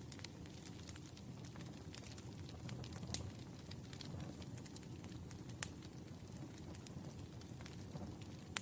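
Wood fire burning: a steady low rumble of flames with scattered crackles and a few sharper pops of the firewood.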